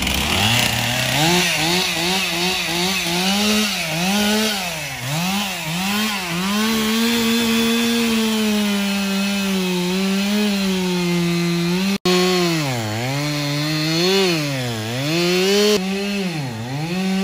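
Two-stroke gasoline chainsaw revving up and cutting into a large tree stump. The engine note dips and recovers over and over as the chain bites into the wood and frees again, holding steadier for a few seconds midway, with a momentary break about twelve seconds in.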